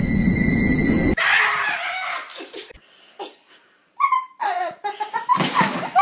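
A loud rushing noise for about the first second, then a person laughing, with a sudden loud burst of noise just before the end.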